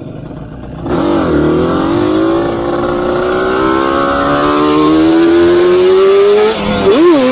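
Yamaha Banshee quad's two-stroke engine ticking over low, then about a second in opening up hard as the quad launches, its pitch climbing steadily for about five seconds under load. Near the end the revs dip sharply and start to climb again.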